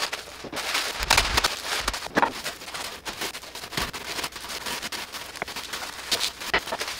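Wooden rolling pin crushing oat cereal inside a sealed plastic zip-top bag, with irregular crunching and crackling of the cereal and the plastic and a few louder knocks.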